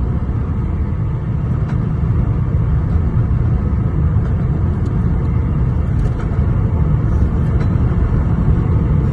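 Lexus GS 300 under way: a steady low engine and road rumble that grows slightly louder, with a few faint ticks.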